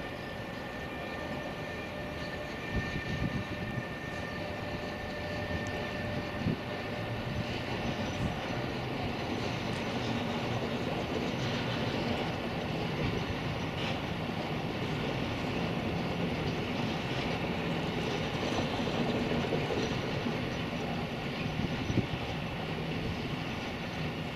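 Freight train of container wagons rolling past at a distance: a steady rumble and clatter of wheels on the rails, growing a little louder toward the middle. A faint high steady tone sounds through the first several seconds as the locomotive goes by.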